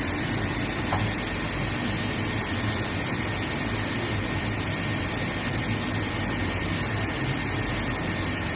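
Chiron FZ22W36 CNC vertical machining centre running, a steady mechanical hum with low rumble and a faint constant whine.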